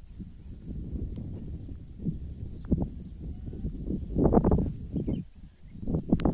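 Insects chirping: a steady, evenly repeating high-pitched pulse over a low rumble, with louder irregular bursts of sound about four seconds in and near the end.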